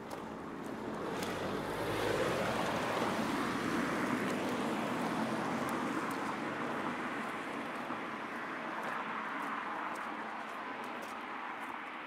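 A car passing: a swell of tyre and road noise that builds over the first two seconds and then slowly fades away, with faint ticks near the end.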